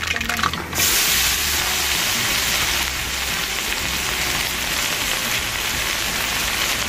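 Mustard seeds crackling in hot coconut oil. About a second in, a large batch of sliced onions drops into the oil and sets off a loud, steady sizzle.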